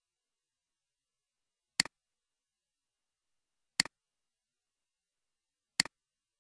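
Three computer mouse clicks, evenly spaced about two seconds apart. Each is a sharp click followed closely by a softer one.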